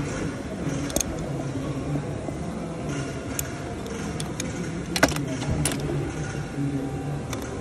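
Metal hand tools, a socket and spanner, clinking against the exhaust nuts while a catalytic converter is refitted: several sharp clinks, the loudest about five seconds in, over a steady low hum.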